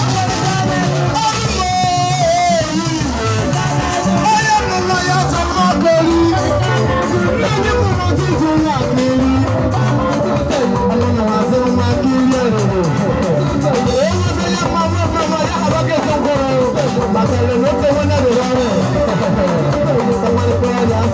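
Live band playing amplified music, a man singing into a microphone over drum kit and electric guitars.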